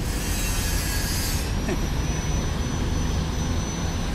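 Double-decker sleeper bus's diesel engine running as it reverses, a steady low rumble. A high hiss sounds over it for the first second and a half.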